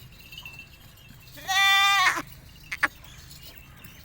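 A goat bleats once, a single call about two-thirds of a second long, midway through. A short click follows about a second later.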